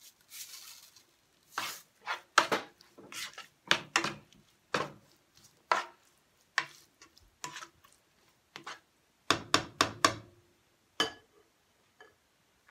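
Plastic cooking spoon stirring diced ham and onion in a nonstick frying pan: irregular knocks and scrapes against the pan, stopping about eleven seconds in. A short hiss of salt being shaken into the pan at the start.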